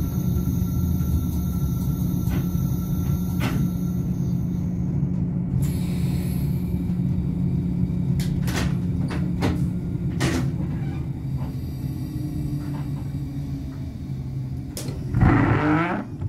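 BLS RBDe 566 regional train running on the rails, heard in the driver's cab: a steady rumble with a low hum and occasional clicks from the track. The hum fades near the end, and about fifteen seconds in there is a short, loud burst with rising tones.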